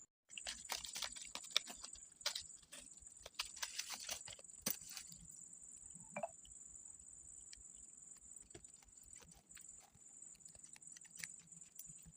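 Soft clicks, taps and crinkles of paper and stationery being handled close to the microphone, busy for the first few seconds and sparser after, over a faint steady high whine.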